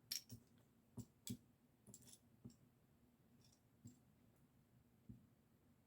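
Faint, irregularly spaced clicks of small plastic Lego bricks being picked out and handled, about eight in all.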